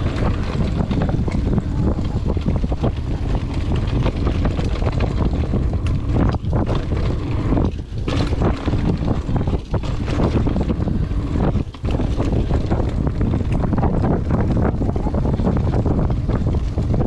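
Wind buffeting a chest-mounted action camera's microphone while a Trek Roscoe 8 mountain bike rides fast down a dirt trail, mixed with tyre rumble and clicks and rattles from the bike over rough ground. The rush drops out briefly a few times.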